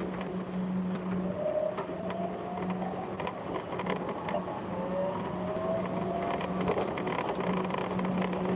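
Forklift driving along, with a steady hum and scattered rattles and clicks. Its motor whine rises twice as it pulls away and picks up speed.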